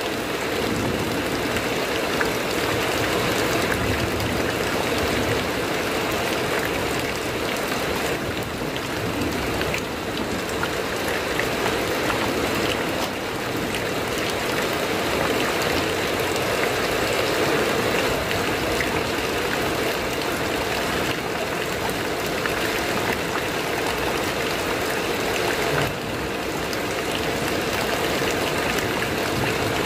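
Heavy rain falling steadily on a corrugated metal roof, heard from underneath as an even, unbroken patter.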